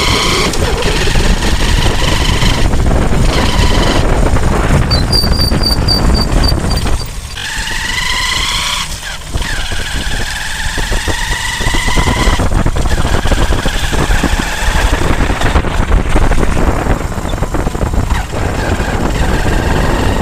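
Honda Shine single-cylinder motorcycle engine running and being revved several times, a whining tone rising and falling in pitch with the throttle. The whine comes from a worn primary gear.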